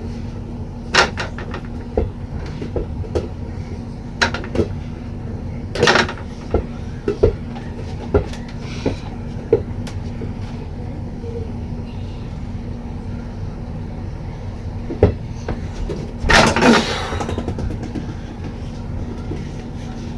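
Rubber ball hitting an over-the-door mini basketball hoop and the closet door it hangs on: scattered, irregular knocks and bangs, the loudest a longer rattling crash about sixteen seconds in.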